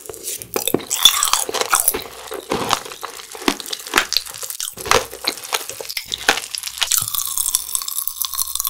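Close-up crunching and chewing of a mouthful of frozen jelly candies and watermelon, many sharp crunches in quick succession.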